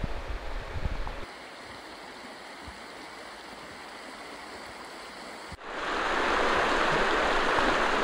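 Shallow mountain river rushing over rocks, a steady, even rush of water that comes in loud and sudden about halfway through. Before that, wind buffets the microphone briefly, then a quieter hiss of moving water.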